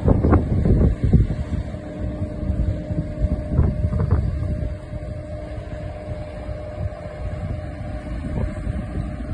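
Wind buffeting the microphone in gusts, stronger in the first half, over a faint steady hum from the mobile crane's engine.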